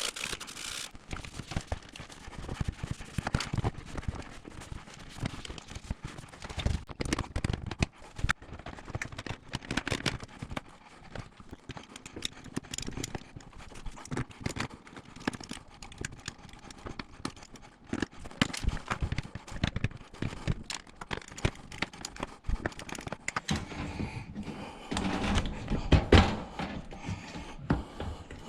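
Irregular clicks and knocks of plastic dishwasher door parts and clips being handled and worked on, with a cluster of louder knocks near the end.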